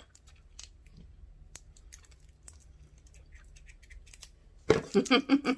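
Scissors snipping at a small plastic candy wrapper, with light clicks and rustles of handling it, then a louder run of rapid sounds near the end.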